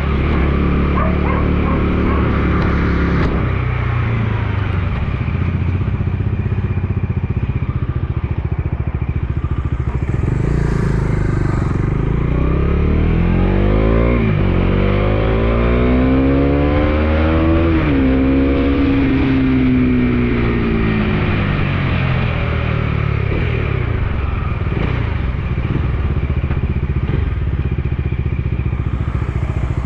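Bajaj Dominar 250's single-cylinder engine running as the motorcycle is ridden, with wind noise. A little before the middle it revs up, drops suddenly at a gear change, revs up again and shifts once more, then its pitch slowly falls as it eases off.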